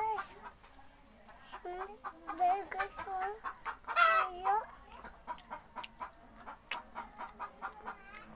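Noisy chickens clucking over and over, with a louder squawking call about four seconds in.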